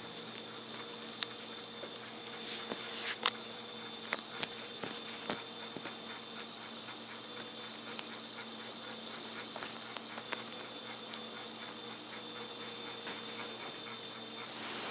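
Light scattered taps and scrabbling of a kitten pouncing on bed blankets, clustered in the first few seconds and sparser later, over a steady electrical hum.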